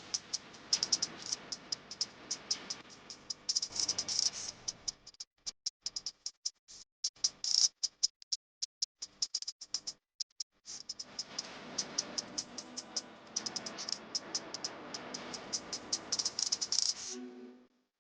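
A utensil clicking and scraping rapidly against a bowl, as in stirring batter. It pauses about five seconds in, with only scattered clicks, and picks up again around ten and a half seconds.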